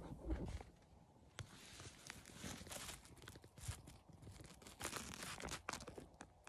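Rustling, crackling and scattered light knocks from a phone being handled and turned, with clothing moving against it inside a hunting blind. A couple of louder thumps come in the first half second, then softer crackles and clicks.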